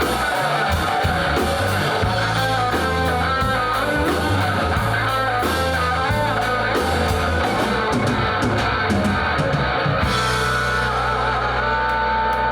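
Guitar-led rock music playing through a push-button radio's speaker, with the top end cut off; about ten seconds in the music changes to a steadier, held sound.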